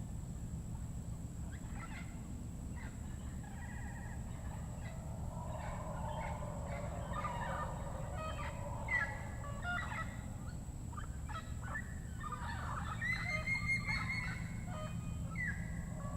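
A chorus of rainforest bird calls: rapid, choppy chattering and gliding notes that start about two seconds in and build to the loudest stretch near the end. They sit over a steady low hum and a constant thin high tone.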